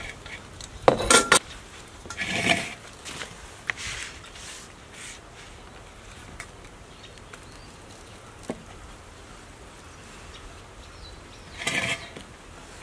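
Tableware clattering: a few short clinks and knocks of dishes and utensils, about a second in, again about two and a half seconds in, and once more near the end, with light ticks between.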